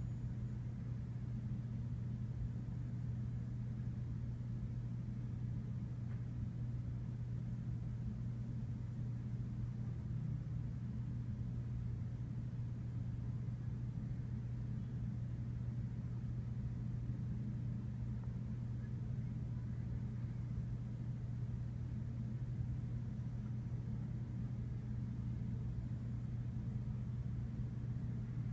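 Steady low hum of a window-sill ventilation unit under a slotted grille.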